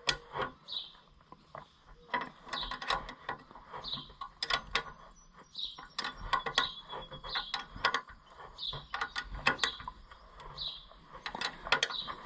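Hand wrench working bolts tight: an irregular run of sharp metal clicks and ticks as the wrench is turned and reset on the bolt heads.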